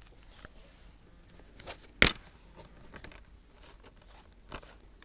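Plastic DVD case being handled: scattered light clicks and rustles, with one sharp plastic snap about two seconds in.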